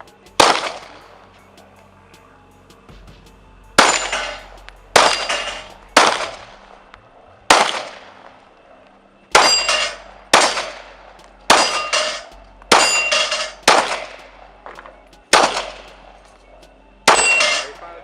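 Handgun shots fired one at a time on a shooting range, about fifteen in all, most roughly a second apart with a few quicker pairs. Each shot echoes as it fades, and some carry a brief metallic ring.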